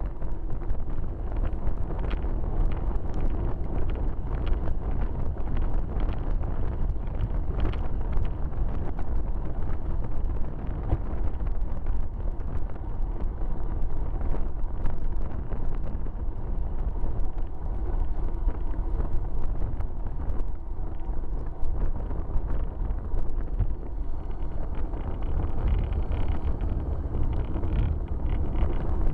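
Steady wind rush on a bicycle-mounted camera's microphone while riding at race speed, with tyre noise on wet tarmac and frequent small rattling clicks from the bike and mount.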